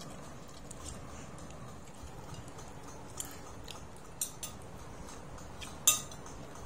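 Metal spoons clinking and scraping on ceramic plates at a meal: a handful of short, sharp clinks in the second half, the loudest about six seconds in.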